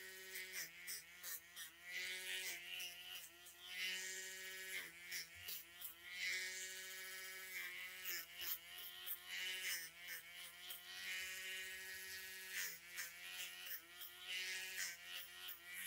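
Cordless Dremel 8050 rotary tool with a diamond bit grinding a puppy's nails: a steady motor whine with many short scratchy grinding touches. The whine sags a little in pitch now and then as the bit bears on a nail.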